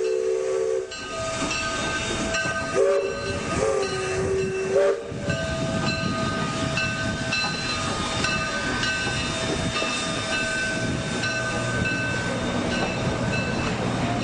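Train sound effect: a train whistle sounds at the start and again from about three to five seconds in, over the steady running noise of a train, with a low rumble building near the end.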